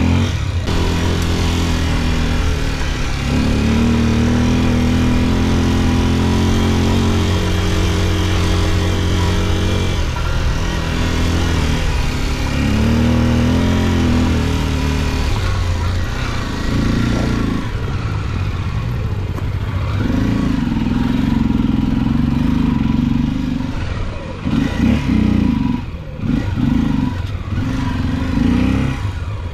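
Honda XR 250 Tornado's single-cylinder four-stroke engine running under riding load, its pitch rising and falling as the throttle changes, with wind noise. Near the end the engine note comes and goes in short bursts of throttle.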